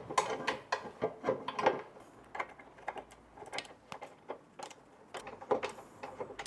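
Irregular small metallic clicks and knocks as locking nuts are fitted and tightened with a hand tool onto T-bolts under a metal sliding-table extension.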